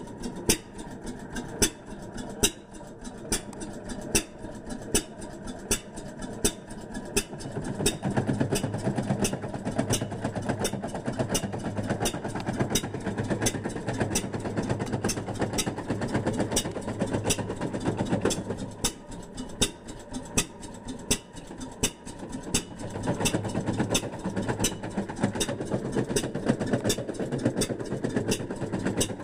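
Fairbanks Morse hit-and-miss engine running, with sharp clicks at about two a second. It gets louder and fuller from about eight seconds in to about eighteen, and again from about twenty-three seconds on, with quieter stretches between.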